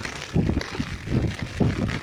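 Strong wind buffeting the microphone in irregular gusts, over a steady hiss of rain falling on water.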